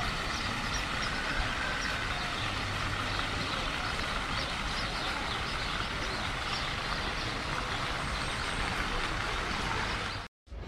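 Steady outdoor wash of noise with splashing from a shallow fountain's small water jets; the sound cuts out for a moment near the end.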